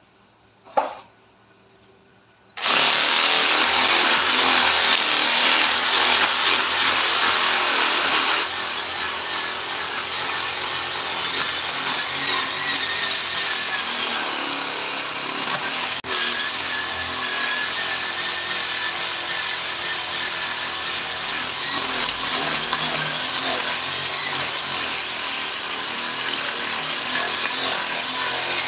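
A power tool starts about two and a half seconds in and runs steadily on wood, a bit louder for its first few seconds.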